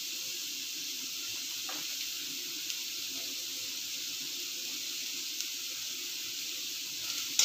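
Chopped onion, carrot and green beans sizzling in hot oil in a kadai: a steady, even hiss with a faint steady hum beneath and a few light ticks.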